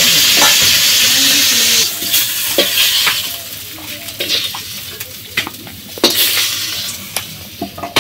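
Pieces of taki fish (snakehead) sizzling in hot oil in a steel karai, loud for about the first two seconds and then much quieter. After that, a metal spatula scrapes and taps against the pan and a steel bowl as the fried fish is lifted out.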